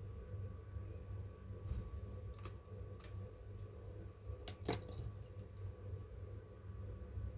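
Scattered small clicks and light metallic clinks of hands working on laptop parts and small screws, with a quick run of clicks a little past halfway. A steady low hum runs underneath.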